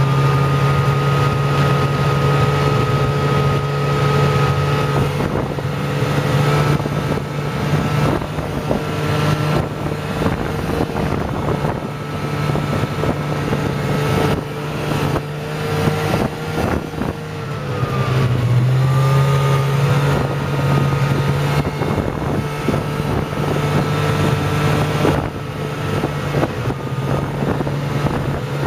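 Snowmobile engine running at a steady cruising speed, heard from the rider's seat. About two-thirds of the way through, the engine speed dips briefly and then climbs back up.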